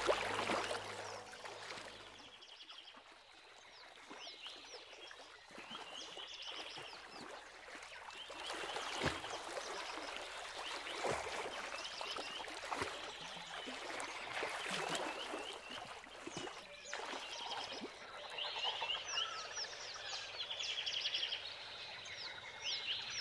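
Frogs calling: short rising chirps repeated in quick runs, with a few sudden splashes in the water.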